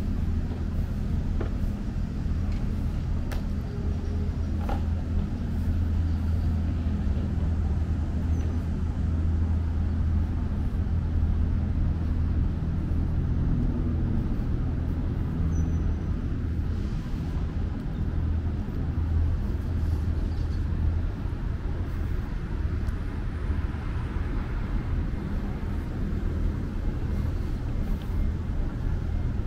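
Street traffic with the steady low hum of an idling motor vehicle engine close by.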